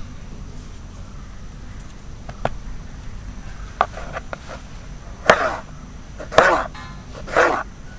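A knife chopping on a cutting board a few times, then an animal calling three times, about a second apart.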